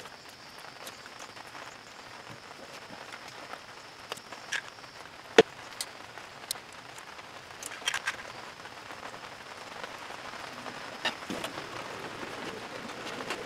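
Small clicks and rustles of wires and crimped spade terminals being handled and pushed onto the generator's switch panel, with one sharper click about five seconds in, over a steady background hiss.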